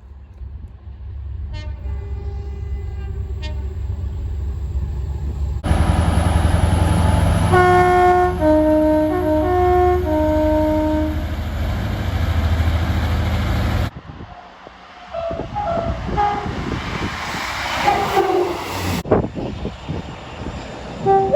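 Train horn sounding a series of blasts that shift between two pitches, over the heavy rumble of a passing train, with a couple of faint short toots before. The sound changes abruptly twice to different, noisier recordings with knocks.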